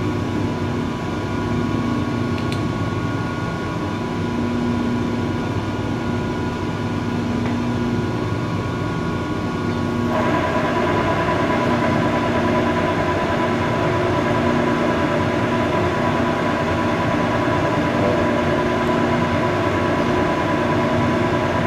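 Monarch metal lathe running, a steady mechanical hum with a few steady whining tones. About ten seconds in, a louder, broader whir of gearing joins in and continues.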